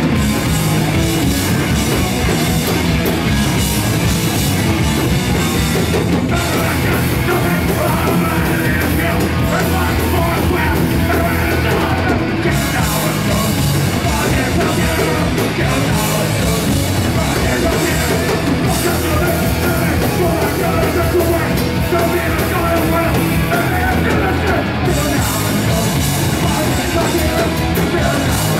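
Hardcore punk band playing live: loud distorted electric guitars, bass and fast drums with shouted vocals, without a break.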